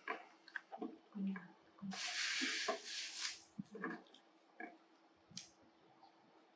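Baby macaque chewing and sucking on a bulb of jackfruit: faint, scattered wet mouth clicks and smacks. A brief rustling hiss about two seconds in, lasting a second and a half, is the loudest sound.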